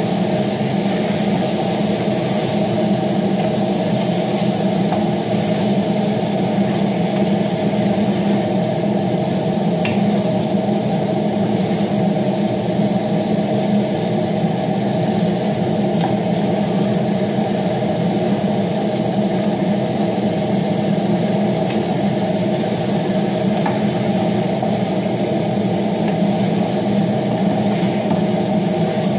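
Steady hum of an electric fan motor, unchanging throughout, with a few faint taps of a wooden spoon against a cooking pot.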